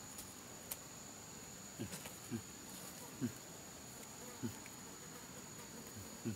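Steady high-pitched drone of forest insects, with a few light clicks and several short low sounds that slide down in pitch, the loudest about three seconds in.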